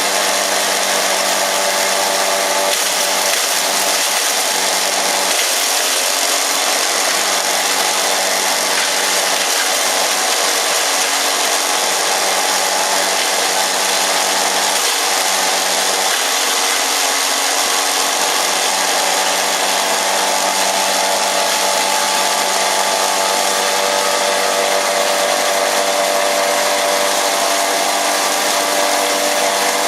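Hammer mill herb grinder running steadily: a loud, even high-speed motor whine over a dense rushing noise.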